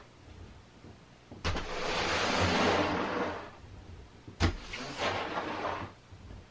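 Snow being knocked off a roof: two sharp knocks on the roof, about a second and a half in and again near four and a half seconds, each followed by a second or so of hissing as the snow slides down the roof panels.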